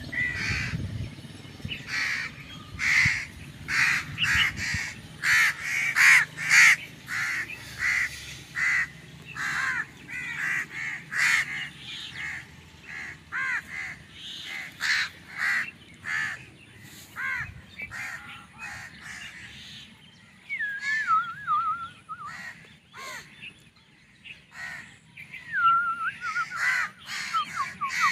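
Birds calling: a long run of short, harsh calls, roughly one or two a second, thinning out after the first half, with a warbling gliding song coming in twice in the second half.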